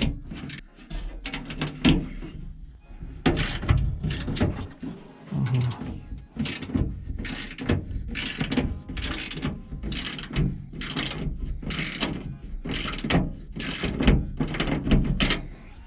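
Hand tools working on metal: irregular clanks and ratcheting strokes, about one or two a second, as bolts are tightened on a steel trailer body.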